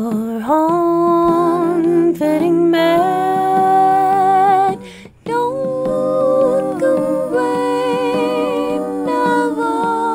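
A woman's voice humming a slow, wordless melody in long held notes with vibrato, part of an acoustic indie song, with a short break about five seconds in.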